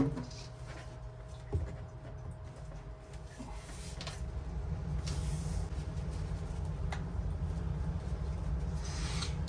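A sharp knock, a lighter knock about a second and a half later, then a low rumble that builds up and holds.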